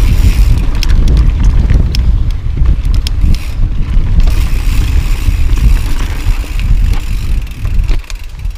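Mountain bike (a 2013 Santa Cruz Tallboy LTc) descending a rocky dirt trail at speed: heavy wind buffeting on the microphone over tyre noise, with many sharp clicks and rattles from the bike. The noise eases off near the end as the bike slows.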